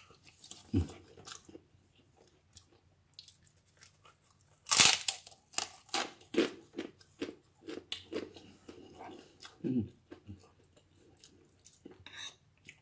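Close-up eating: quiet chewing, then a loud crunching bite into a crispy fried cracker about five seconds in, followed by several seconds of crunchy chewing.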